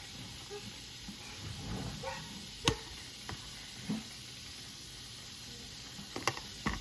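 Oil sizzling steadily under a corn tortilla frying in a pan, with a few sharp clicks of a utensil against the pan. The loudest click comes near the middle.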